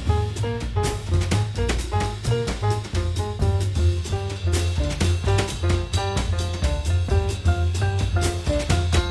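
Upbeat jazz background music with drum kit, a walking bass line and short melodic notes over a steady quick beat.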